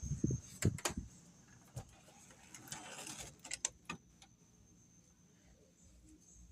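Crickets trilling in a faint, steady high tone, broken by a scatter of sharp clicks and knocks in the first four seconds and a brief hiss about three seconds in.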